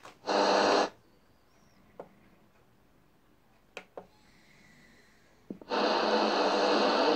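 Soundmaster High Line TR65 radio being tuned across the AM band: a short burst of static hiss from its speaker just after the start and a longer one near the end, cutting in and out abruptly. Between them come a few faint clicks of its buttons and a faint whistle.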